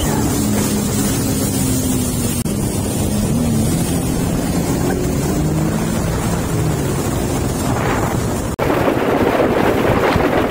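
Jet ski engines running at speed over rushing water, the engine pitch falling and then rising again. About eight and a half seconds in it cuts to a louder rush of wind and spray on board a jet ski at speed.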